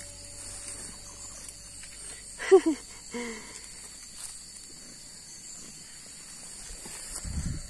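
A short voiced call, falling in pitch, about two and a half seconds in, followed by a softer one, over a quiet background with a faint steady high hiss. A brief low thump comes near the end.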